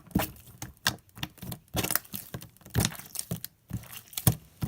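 Sticky homemade borax slime being squeezed and pulled by hand, giving irregular wet clicks and pops several times a second.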